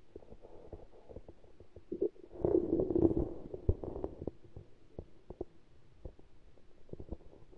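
Muffled underwater sound picked up by a camera under the ice, with scattered small knocks and a louder rumbling stretch from about two to four seconds in.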